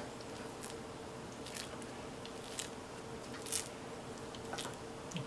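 Dough being worked in a greased baking pan: faint short scrapes, about one a second, over a faint steady hum.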